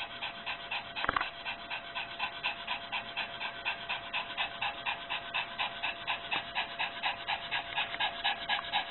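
Small white dog panting rapidly and evenly, about four to five breaths a second. It is anxiety panting during a panic attack. There is a single brief knock about a second in.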